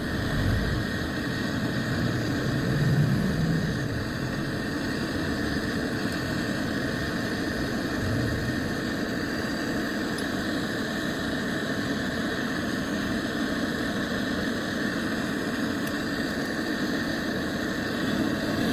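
Steady running noise of a motor-driven machine, an even noisy hum with no change in pitch or level, which stops abruptly at the end.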